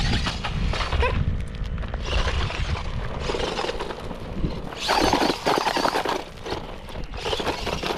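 Radio-controlled car driving hard on gravel: its motor whines as it revs, with crunching and spraying of gravel under the tyres, the loudest burst about five seconds in.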